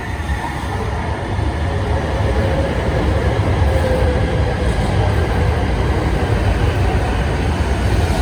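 Tohoku Shinkansen train of coupled E5 and E3 series sets running into the station, a loud steady rumble that builds over the first couple of seconds, with a faint whine a few seconds in.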